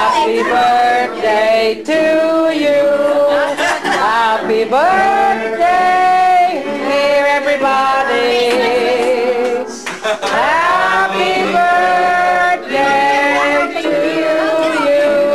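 A group of men and women singing a birthday song together, held notes one after another with a short break about ten seconds in.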